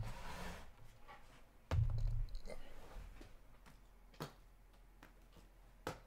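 Small cardboard trading-card boxes being handled and pulled from a stack on a shelf: a brief sliding rustle at the start, a dull thump about two seconds in, and a couple of light clicks.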